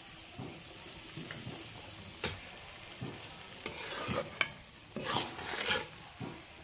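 Kochur loti in mustard paste sizzling in a metal kadai while a spatula stirs and scrapes it around the pan. There are sharp knocks of the spatula against the pan about two, three and a half and four and a half seconds in, and louder scraping stretches in the second half.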